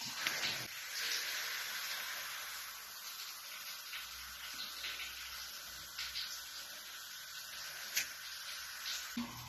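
Baking soda solution fizzing in a glass as it reacts with added vinegar: a faint, steady hiss with tiny crackles from the bursting bubbles, and one sharp tick about eight seconds in.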